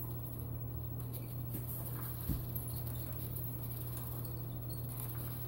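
Fineliner pen scratching on paper as it is driven round inside nested plastic spirograph gear wheels, with faint ticks from the wheels, over a steady low hum. One soft knock about two seconds in.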